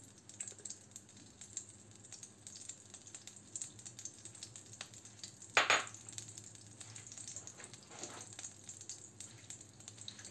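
Butter melting and sizzling faintly in a hot nonstick frying pan, with small crackles throughout and one louder brief spatter a little past halfway. The sizzle is the sign that the pan has heated up.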